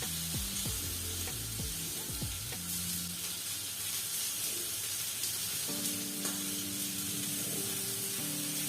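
Steak searing in a very hot pan: a steady sizzle with a few faint clicks near the start.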